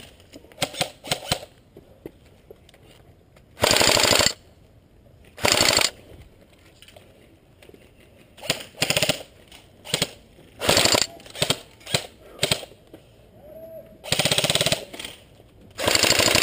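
Airsoft guns firing on full auto, a rapid clatter of shots in bursts. There are a few short bursts at the start, longer bursts around four and five and a half seconds in, a flurry of short bursts in the middle and two more long bursts near the end.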